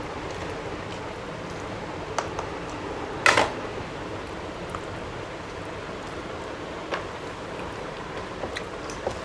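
Eating by hand: fingers mixing and squishing rice and fish curry on plates, with small scattered clicks and one louder brief eating noise about three seconds in, over a steady background noise.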